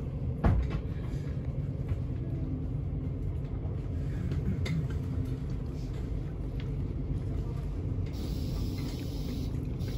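Steady low rumble of a moving express train heard from inside the carriage. A sharp knock comes about half a second in, and a brief hiss rises over the rumble near the end.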